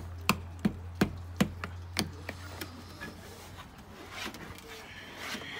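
Metal potato masher knocking against a plastic mixing bowl as it works through wet cornbread batter, about three knocks a second for the first two and a half seconds, then softer scraping and stirring.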